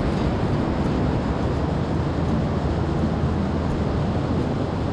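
Steady rushing noise of ocean surf with wind buffeting the microphone.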